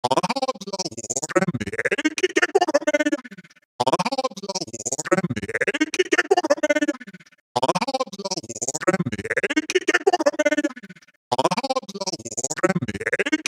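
Synthesized robotic voices, electronically processed and stuttering in rapid chopped fragments. A segment of a little under four seconds repeats as a loop, with a brief break between repeats.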